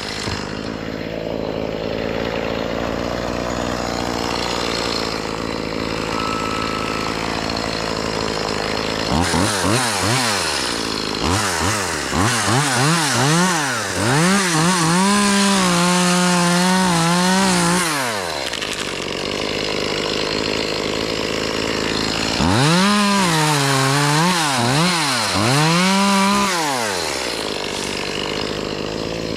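Chainsaw cutting tree limbs. After about nine seconds of steady machine noise, the saw is revved up and down several times and then held at high speed for a few seconds. It is revved and run at speed again from about twenty-two seconds in.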